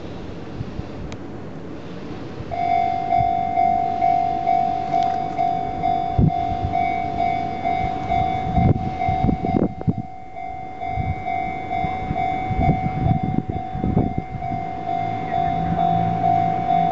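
A Japanese level crossing's electronic warning bell starts about two and a half seconds in and keeps ringing in even, repeated dings. Near the end a low steady hum joins it.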